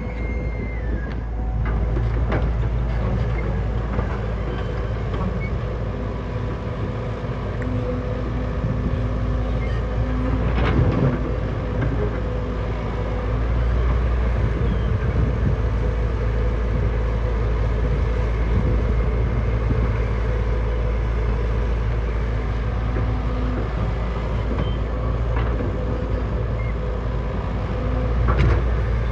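Heavy earthmoving machinery at work: large diesel engines running steadily under load with a deep drone. A couple of sharper knocks come through, about eleven seconds in and near the end.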